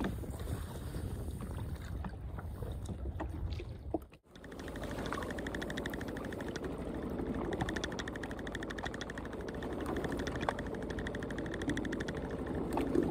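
Steady noise of a small boat on the water, with a fast, even ticking from about four seconds in, just after a brief dropout.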